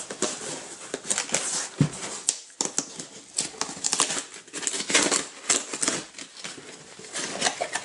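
Cardboard Priority Mail box being pulled and torn open by hand: irregular crackling, ripping and rustling of the cardboard and its flaps.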